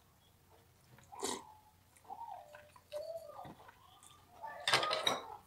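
Spicy seafood instant noodles being slurped and chewed. A short slurp comes about a second in and a longer, louder slurp near the end, with a few faint wavering tones in between.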